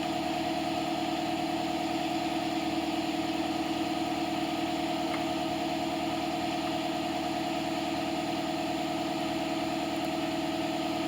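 Steady mechanical hum of machinery running, holding two constant tones with a fast even pulse underneath and no change in level, with a couple of faint light clicks.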